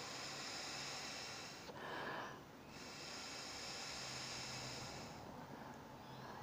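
A man blowing his breath steadily through a bagpipe moisture-control canister rig and its corrugated hoses, a faint airy hiss in two long blows with a quick breath in about two seconds in. No reed or drone sounds.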